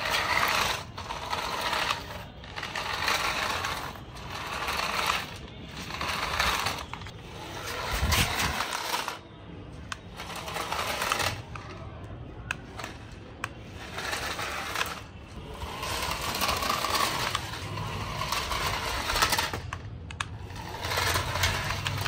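Toy RC car's small electric motor and gears whirring as its wheels grind and rattle over rough concrete. It comes in repeated spurts of a second or two as the car drives, stops and drives again.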